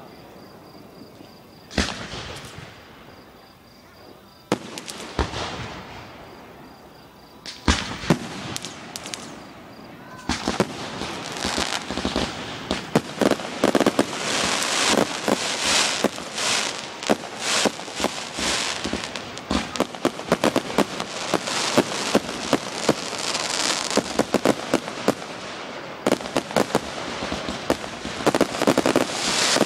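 Fireworks going off: a few separate bangs in the first eight seconds, then from about ten seconds in a dense, continuous volley of rapid pops and crackles.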